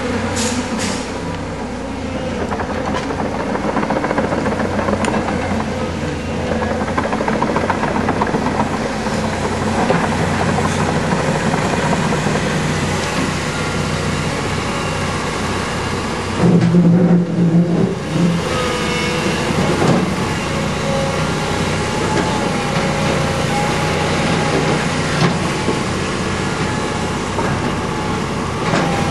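Diesel engine of a tracked hydraulic excavator running steadily as it digs and loads spoil. Its note shifts partway through, and there is a brief louder rev a little past halfway.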